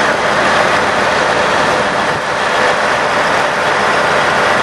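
Diesel engine of a Morbark 1200 tub grinder running at a loud, steady level.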